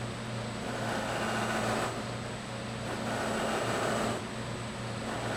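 Electric buffing machine running steadily, with a rushing swell every second and a half or so as the drum shell is pressed down against the compound-loaded buffing wheel and drawn away again, about four passes.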